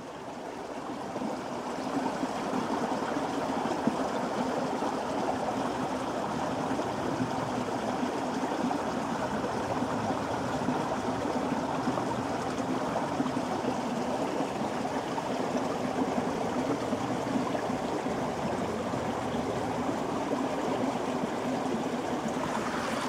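Steady rushing of running water, as from a nearby stream, fading up over the first couple of seconds and then holding even.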